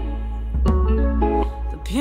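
Background music: an instrumental passage of short notes stepping in pitch, dipping briefly in level near the end.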